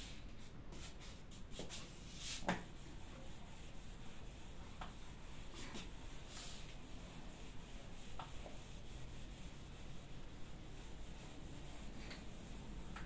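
A whiteboard eraser rubbing across the board in faint strokes as the writing is wiped off, with one sharper knock about two and a half seconds in.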